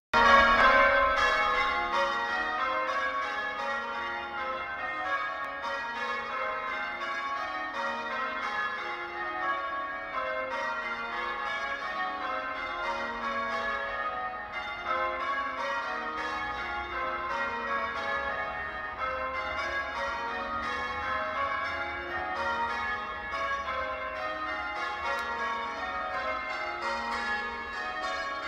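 Sheffield Cathedral's church bells being rung in changes: a steady, rapid stream of bell strokes in shifting order, loudest right at the start.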